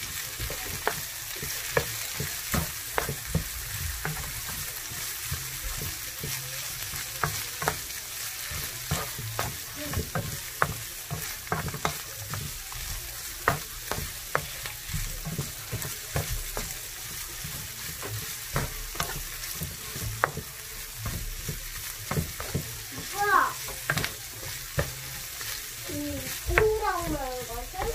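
Chicken and sliced onions sizzling in a nonstick frying pan while a wooden spatula stirs them, knocking and scraping against the pan at an irregular pace over a steady hiss.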